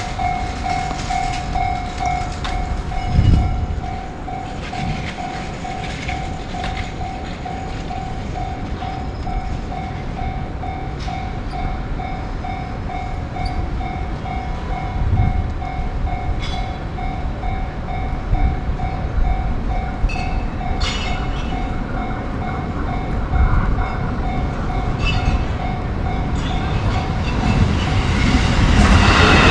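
Japanese level-crossing bell ringing in a steady, evenly repeated ding while a train runs past, its wheels clacking over the rail joints. The train noise grows louder near the end.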